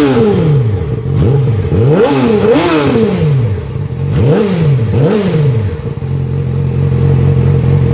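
Yamaha R6's 599 cc inline-four engine revved in a series of quick throttle blips, the pitch rising and dropping back each time, then settling to a steady idle about six seconds in.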